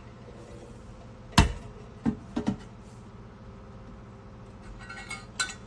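Stainless steel French press parts knocking and clinking as they are handled: one sharp metal knock about a second and a half in, a few lighter knocks just after, and light ringing clinks near the end.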